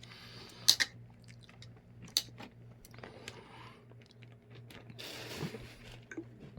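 A cat chewing and crunching on a piece of hand-fed chicken, with sharp little clicks of its bite and wet rustling mouth sounds. A faint steady low hum runs underneath.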